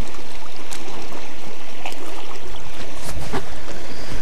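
Steady rush of small waves lapping along a gravel lakeshore, with a few light clicks and a low rumble of wind on the microphone in the second half.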